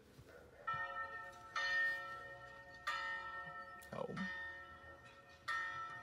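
A recorded church-bell sound played back through a small speaker, set off by touching the conductive-paint shapes: four bell strikes, each starting suddenly and ringing on, the last after a pause of over two seconds. A short falling sound comes about four seconds in.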